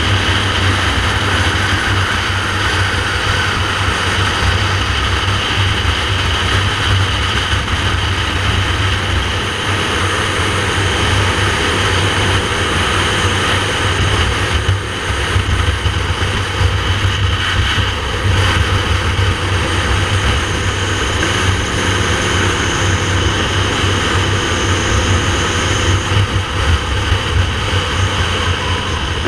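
Motorcycle riding at road speed: its engine running steadily, under heavy wind rushing over the camera microphone. There is a brief dip in loudness about halfway through.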